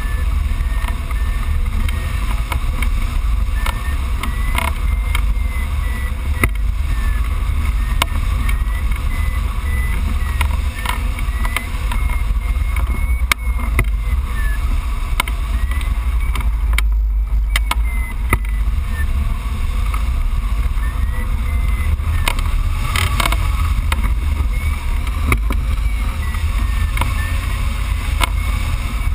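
Wind buffeting the microphone of a hang glider in flight, a loud steady rumble, with a variometer's short high beeps coming and going and stepping up and down in pitch, the sign that the glider is climbing in lift.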